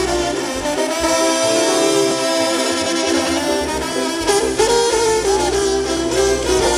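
Mexican banda brass band playing: horns carry a held, sliding melody over a steady low bass line.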